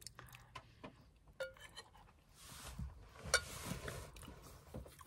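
Faint eating sounds: a metal spoon clicking and scraping in an enamel bowl, with a few light clinks and the sharpest one a little over three seconds in.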